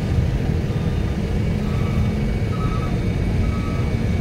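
Heavy truck engine running with a low, steady rumble, joined about a second in by a truck's reversing alarm beeping roughly once a second.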